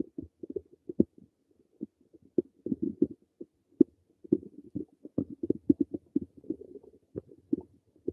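Human stomach gurgling: an irregular run of short, low, bubbly pops and rumbles, some in quick clusters and a few louder single pops.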